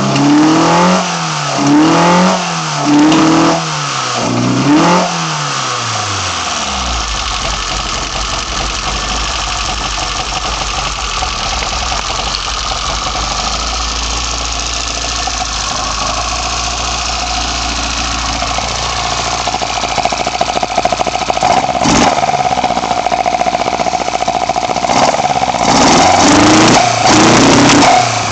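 BMW M10 four-cylinder engine on sidedraft individual throttle bodies, blipped four times in quick succession in the first five seconds, then settling to a steady idle. Near the end it is revved again in short blips.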